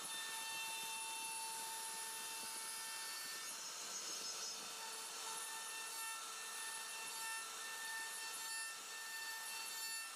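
CNC router spindle running at speed, its bit carving relief patterns into a wooden panel: a steady whine with several overtones over a continuous hiss of cutting.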